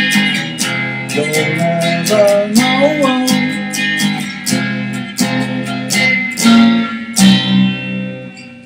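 Music: guitar chords strummed steadily, with a melody line rising and falling over them, in an instrumental passage between sung lines. It tails off near the end.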